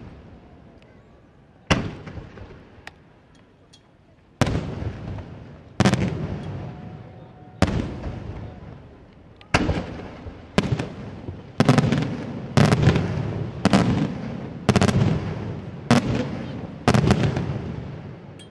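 Aerial firework shells bursting one after another, each bang trailing off in a long fading echo. A few spaced-out bursts come first, then the bangs quicken to roughly one or two a second from about ten seconds in.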